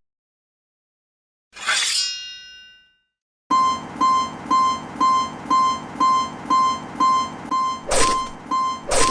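A single metallic strike that rings out, then a railroad crossing alarm sounding its repeated 'kan-kan' dings about twice a second. Near the end, three louder sharp hits land about a second apart over the dinging.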